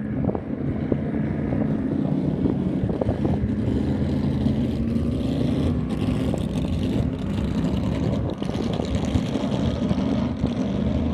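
Speedboat engine running steadily at speed on the river: a continuous low engine drone whose pitch wavers slightly.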